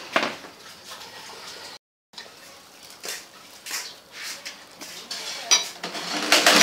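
Ceramic noodle bowls and wooden chopsticks clinking and knocking against each other and on a slatted wooden table in scattered taps. The sound cuts out briefly about two seconds in, and the knocks come closer together and louder near the end.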